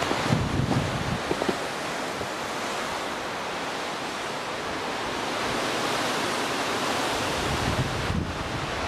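Strong wind rushing through conifer trees, a steady hiss that swells a little past the middle. Wind gusts buffet the microphone with a low rumble in the first second or so and again near the end.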